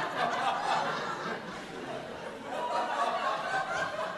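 Audience laughing and chuckling.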